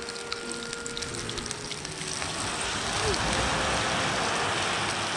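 Thick pork belly sizzling and spitting in a frying pan over a campfire, a steady hiss with fine crackles. The sizzle grows louder about two seconds in.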